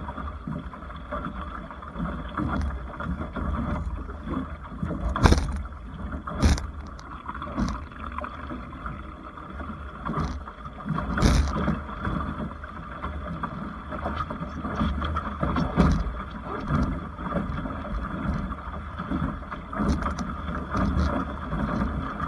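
Water rushing along and slapping against the hull of a Topper Sport 14 sailing dinghy under way, over a low wind rumble on the microphone. Sharp knocks from waves striking the hull come now and then, the loudest about five, six and eleven seconds in.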